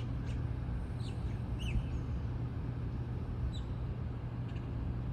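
Steady low outdoor rumble, like distant traffic, with a few faint, short bird chirps about one, two and three and a half seconds in.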